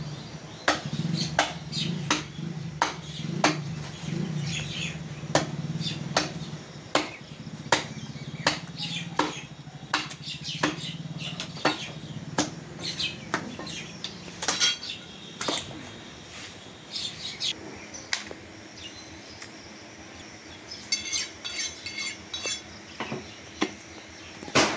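Butcher's cleaver chopping into a beef front leg on a wooden chopping block: sharp chops about one and a half a second, growing sparser after the middle. Birds chirp briefly near the end.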